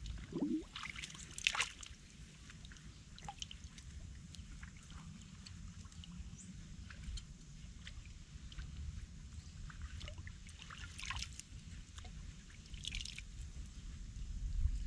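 Water sloshing and trickling as a person moves through shallow water, with sharper splashes about a second in and again near eleven and thirteen seconds.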